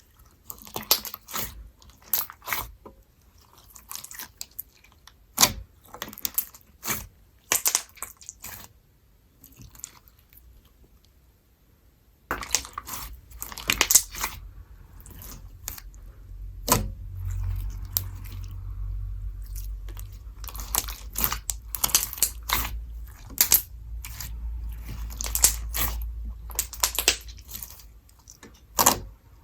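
Slime being squeezed and worked by hand, making irregular sticky crackles, pops and clicks; from about twelve seconds in a low rumble of handling runs under them.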